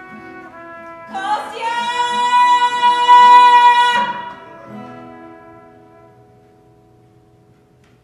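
Music: a low repeating figure, joined about a second in by a loud held high note that stops suddenly about four seconds in, after which the music fades away.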